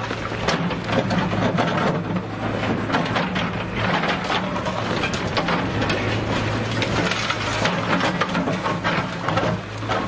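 JCB backhoe loader's diesel engine running steadily while its bucket smashes into a brick house, with repeated crunching and clattering of breaking masonry and debris.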